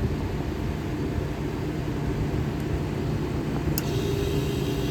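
Steady low hum and rumble of running refrigeration equipment. About four seconds in there is a sharp click, and a second, higher steady hum joins.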